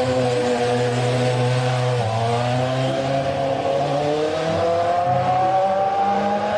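Formula 1 racing car engine sound, running at high revs. Its pitch sags, jumps about two seconds in, then climbs slowly as it accelerates.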